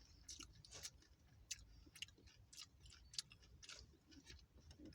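Faint, irregular small clicks and crunches, typical of a crisp taco shell being chewed.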